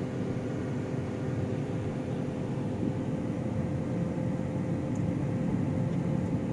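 Car running on the road, heard from inside the cabin: a steady engine and road drone with a faint held hum.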